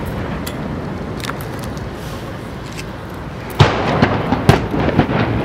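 USS Constitution's saluting gun firing once, part of a 21-gun salute: a loud sharp bang about two-thirds of the way in, over steady outdoor background noise, followed by a few softer thuds.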